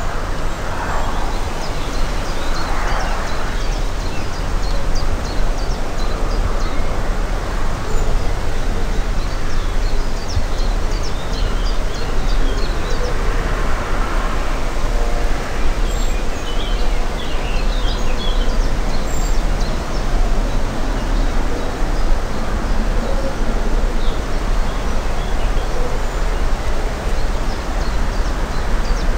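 Steady wind rumbling on the microphone, with small birds chirping and calling on and off throughout.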